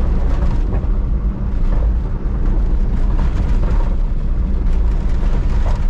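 Inside the cabin of a Range Rover P38 driving over rough off-road ground: a steady low engine and tyre rumble with scattered knocks and rattles from the body and suspension, sounding like it's falling apart.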